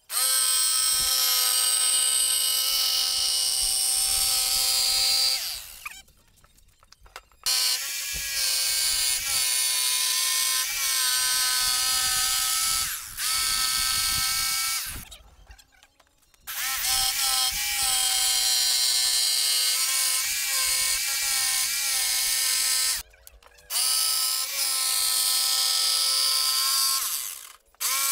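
Corded DeWalt jigsaw cutting a circular speaker hole in a plywood sheet: a steady motor whine over the harsh rasp of the blade. It stops and starts again several times.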